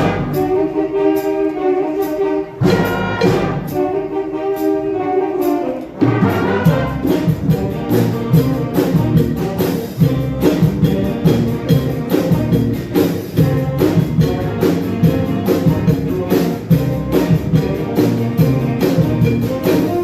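High school band with brass playing: held brass chords for about the first six seconds, then drums and the full band come in with a steady beat.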